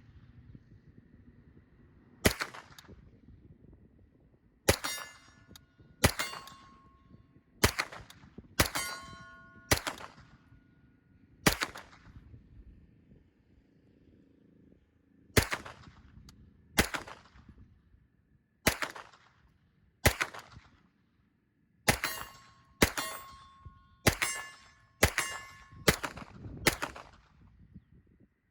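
Sig MPX Gen 2 9mm carbine firing a magazine of jacketed hollow-point rounds, about twenty single shots at an uneven, unhurried pace with short pauses between groups. Several shots are followed by a brief metallic ring.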